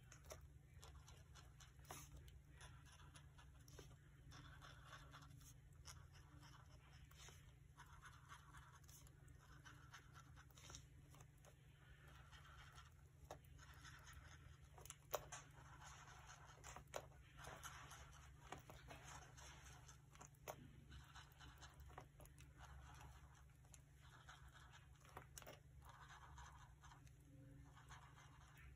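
Near silence: faint scratching and light taps of a pen dabbing dots onto paper, over a low steady hum.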